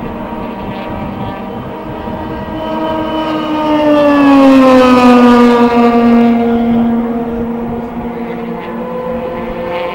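Open-wheel race car at high revs passing close by at speed. It grows loudest about four to five seconds in, and its engine note drops in pitch as it goes past. Other race cars' engines drone steadily underneath.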